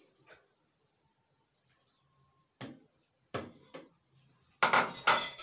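A few sharp taps from handling an egg in a small bowl, then near the end a short loud clatter of a utensil against the bowl.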